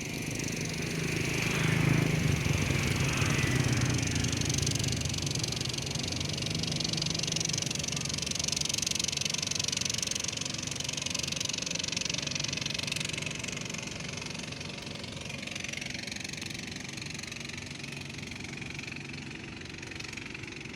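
An engine running steadily, loudest about two to four seconds in and then slowly fading.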